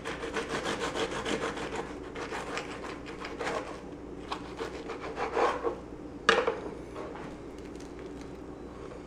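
Kitchen knife sawing through a toasted club sandwich, the blade rasping on the crisp toast in quick strokes, about four a second, slowing after a couple of seconds. A single sharp knock comes about six seconds in.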